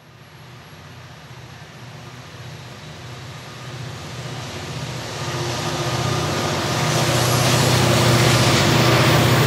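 Diesel locomotives approaching: a low engine drone with a fine pulsing beat and rising wheel-and-rail noise grow steadily louder, then hold loud over the last couple of seconds.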